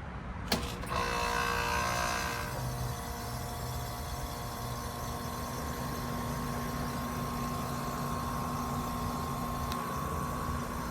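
A 2-ton American Standard heat pump's outdoor unit starting up in cool mode. A sharp click comes about half a second in, then the compressor and fan run up with a hissing whine for a second or two before settling into a steady hum.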